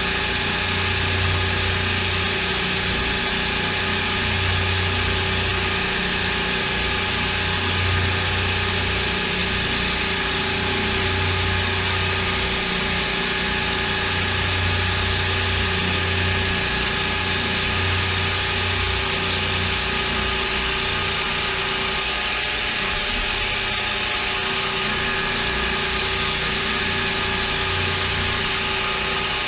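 CNC mill running a machining cycle: steady motor and gearbox whine, with a low hum that swells about every two seconds and stops pulsing about two-thirds of the way through.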